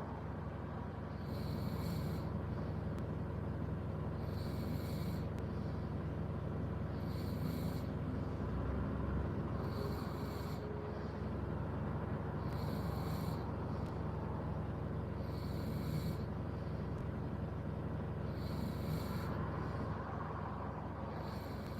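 A person snoring in their sleep inside a car, one snore about every three seconds, over a steady low hum.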